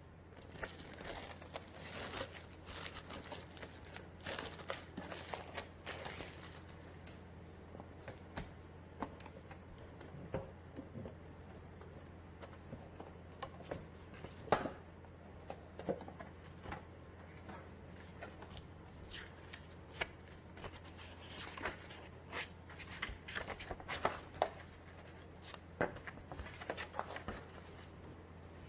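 Packaging being opened and handled by hand. For the first several seconds there is dense crinkling and tearing of wrapping. After that come scattered taps, clicks and rustles of cardboard and paper being handled.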